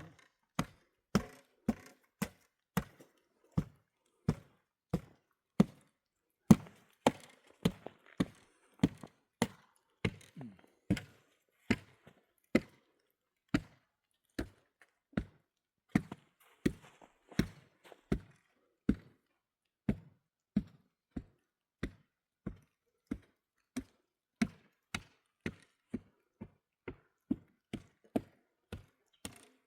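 Steady chopping blows, about three every two seconds, each a sharp knock.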